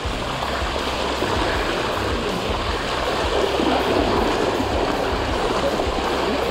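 Steady rushing noise of a mountain bike being ridden along a trail: wind on the microphone and tyres rolling over dirt, with a low rumble throughout.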